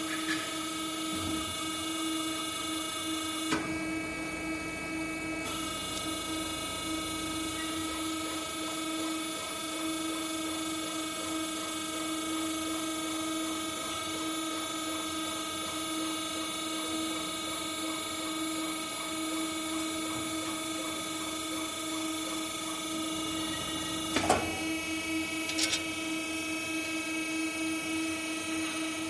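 WD-360 CNC aluminium-profile bending machine running while it bends a profile, a steady hum with a whine over it, and a sharp clunk about three and a half seconds in and again a few seconds before the end.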